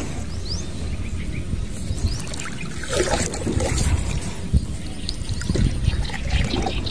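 Water sloshing and small knocks around a canoe at the water's edge as it is paddled, over a steady low rumble.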